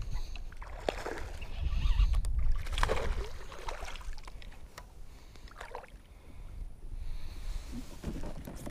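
Water swishing and lapping against a kayak hull as it moves, in uneven swells over a steady low rumble.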